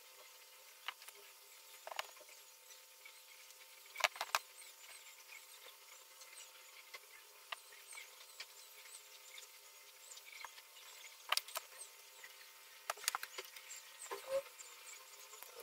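Scattered light clicks and taps of small plastic model-kit parts being handled on a tabletop, the sharpest a double tap about four seconds in and a run of clicks near the end.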